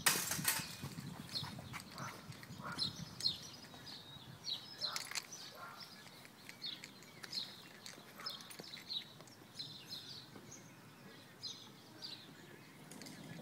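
Footsteps on pavement: short clicking steps, irregular and about two a second, with a louder bump at the very start.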